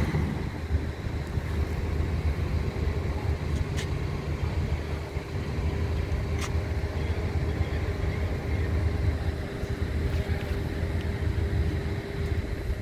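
An engine running steadily: a low hum with a faint steady higher tone through most of it, and two faint clicks about four and six and a half seconds in.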